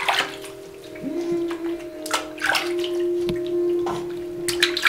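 Water splashing in a plastic baby bathtub as hands scoop and rinse water over a baby's head. There are short splashes at the start, a couple about two seconds in, and a cluster near the end, over soft, calm music with long held notes.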